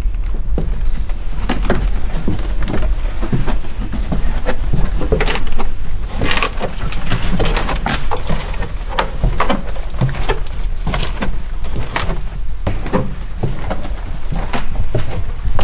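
Irregular knocks, scuffs and scrapes of people climbing down a steep wooden staircase littered with flakes of plaster, feet and hands bumping on the wooden steps.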